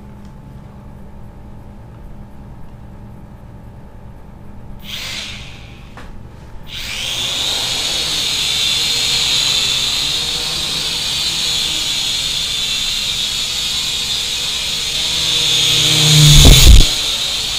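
JJRC H5C toy quadcopter's four motors and propellers spinning up about seven seconds in, then a steady high-pitched whir as it flies. A loud thump near the end.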